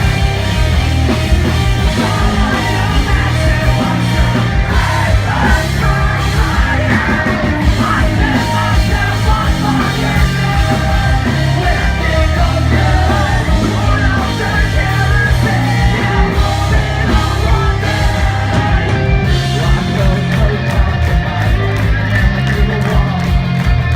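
A live rock band playing loud, with yelled vocals over the band. Near the end the drums come through as a fast, even beat.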